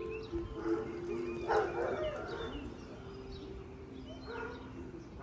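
Distant outdoor warning siren loudspeaker broadcasting during its test, heard as held tones that step between a few pitches, strongest in the first second and then fading. Birds chirp throughout, and a dog barks about a second and a half in.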